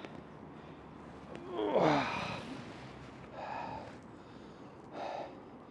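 A man's voiced sigh falling in pitch about a second and a half in, followed by two shorter, quieter breaths.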